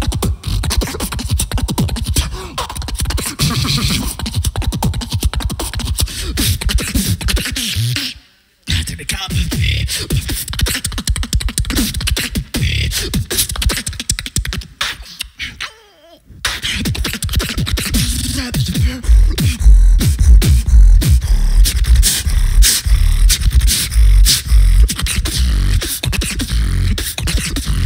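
Solo beatboxing through a handheld microphone and PA: fast vocal kicks, snares and hi-hat clicks. It stops dead for a moment about 8 s in and again about 16 s in. From about 19 s on, deep bass kicks dominate.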